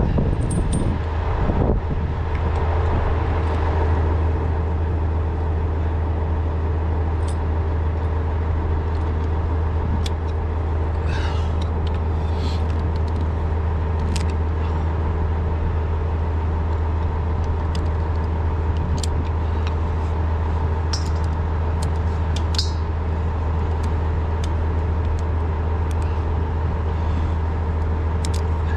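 Truck engine idling steadily, with a few short clicks scattered through.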